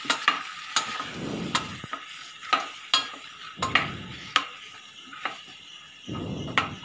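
A wooden spatula stirring whole peeled mangoes in a stainless steel pot, knocking and scraping against the metal sides in irregular sharp clicks, over a faint sizzle of oil in the pot.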